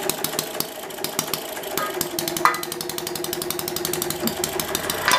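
Home-built vertical hit-and-miss model engine firing in a rapid, even run of sharp exhaust beats while it drives a winch lifting a weight. Under this load it has stopped missing and fires on every power stroke. A steady tone joins for about two seconds in the middle.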